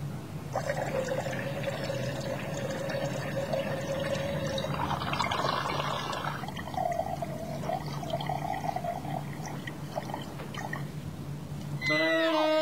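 A person urinating standing up into a toilet bowl: a steady stream splashing into the water, louder and rougher a few seconds in, then breaking into short spurts and dribbles. String music comes in near the end.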